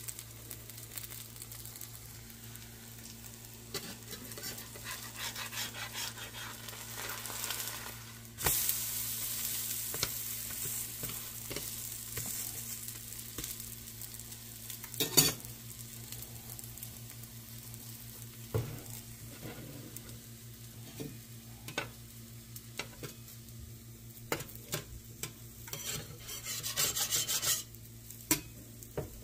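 Potato-and-vegetable paratha batter frying in oil in a nonstick pan, sizzling, with a steady low hum underneath. The sizzling jumps louder about eight seconds in as the paratha is turned over onto its uncooked side, and there are scattered sharp clicks of a spatula against the pan.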